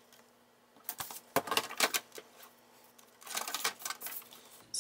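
Handling noise from setting up a paper trimmer: a few sharp clicks of plastic and metal tools about a second in, then a short rustling clatter as a sheet of cardstock is laid into the trimmer and squared against its guide.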